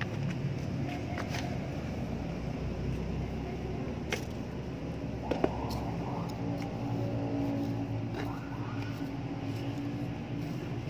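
A motor vehicle engine running steadily in the background, with a few sharp clicks as a metal scoop works potting soil in a plastic pot.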